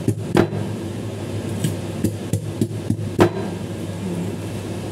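Steel cleaver chopping through corn cobs, with sharp knocks as the blade is driven down onto the board. The two loudest come about half a second in and just after three seconds, with several lighter taps in between, over a low steady hum.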